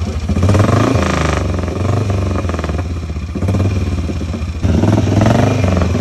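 Vintage Norton single-cylinder motorcycle engine running, its revs rising and falling as the throttle is blipped; it gets suddenly louder about four and a half seconds in.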